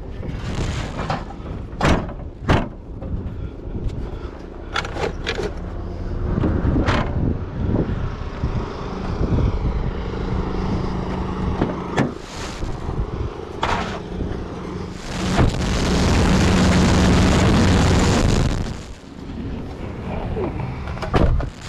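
Several sharp knocks and bangs, then a vehicle engine running steadily, louder for a few seconds past the middle.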